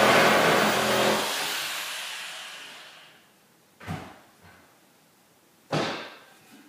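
A motor vehicle going by outside, loud at first and fading away over about three seconds. Then two short knocks about two seconds apart.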